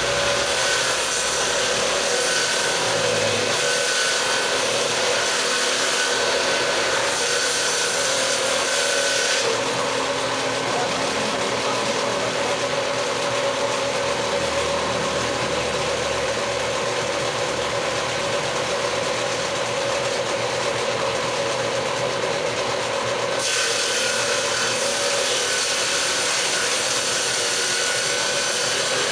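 Power tool running steadily while it cuts into wood for a door jamb. The high hiss thins for about fourteen seconds from about ten seconds in, then returns.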